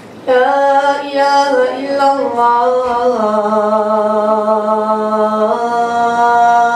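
A boy calling the adhan, the Islamic call to prayer, into a handheld microphone. It is one long, ornamented held phrase that steps down in pitch, beginning a moment in.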